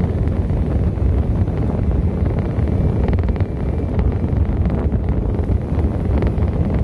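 Wind buffeting the microphone while riding a Genuine Roughhouse 50cc two-stroke scooter at road speed, with the engine running underneath the wind.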